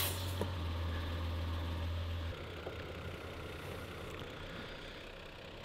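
Air chuck clicking onto a tyre valve stem, then a Smittybilt 12-volt portable air compressor running with a steady low hum as it inflates the tyre; the hum drops a little about two seconds in.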